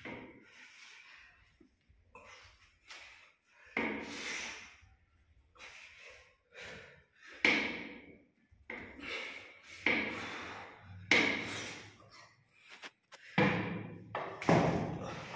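Repeated knocks and thuds of a barbell loaded with plastic-covered weight plates, struck about half a dozen times at uneven intervals, each with a short ringing tail.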